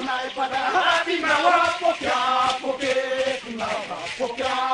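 A group of voices chanting together, a ni-Vanuatu custom dance song, with held notes that rise and fall in phrases.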